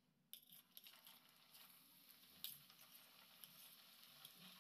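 Near silence, with a few faint crackles from hot oil as pieces of shankarpali dough go in to deep-fry.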